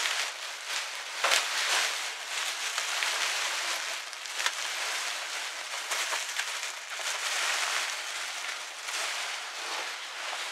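Thin plastic wrapping crinkling and rustling without a break as it is pulled and wrestled off a bulky crocheted pouf, with a few sharper crackles; the plastic is stuck and hard to get off.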